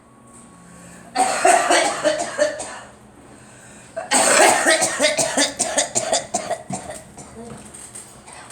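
A girl coughing in two fits: a short burst of coughs about a second in, then a longer run of rapid, repeated coughs starting about four seconds in that trails off.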